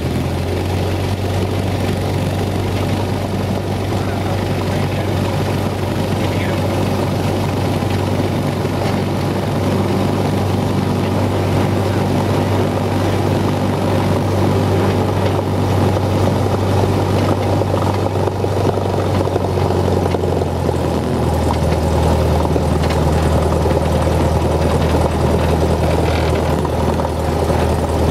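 Cessna 172's piston engine and propeller running at low power while taxiing, a steady drone heard from inside the cabin. About three-quarters of the way through, the engine note steps slightly lower.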